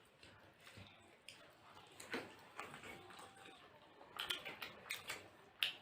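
Faint close-up chewing and mouth sounds of someone eating chicken momo, with a run of short wet clicks in the last two seconds.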